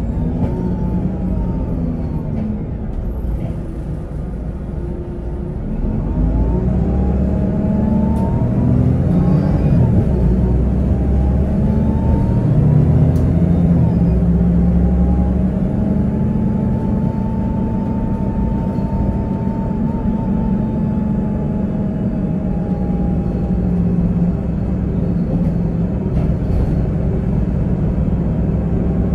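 Inside a 2018 Otokar Vectio C city bus under way: its Cummins ISB6.7 six-cylinder diesel rumbles under the floor while the Voith automatic gearbox whines. The sound eases off a few seconds in, then grows louder from about six seconds as the bus pulls away again, the whine rising in pitch. It settles into a steady whine while cruising.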